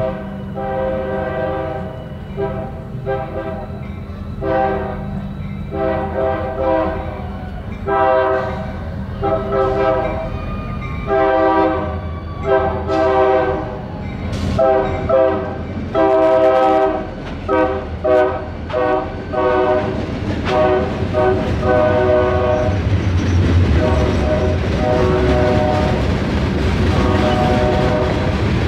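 Diesel freight locomotive's air horn sounding a long run of short and long blasts as it approaches and crosses the street. The locomotive then rumbles past, and its freight cars roll by over the rails.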